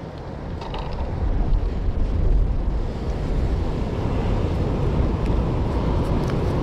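Sea surf washing on the shore with wind buffeting the microphone: a low, rumbling rush that swells over the first couple of seconds and then holds steady.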